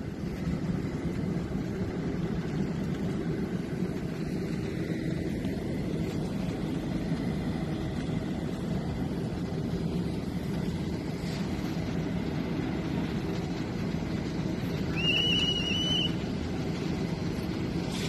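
Regional electric train standing at a platform, its onboard equipment giving a steady low hum. About 15 seconds in, a brief high-pitched tone sounds for about a second.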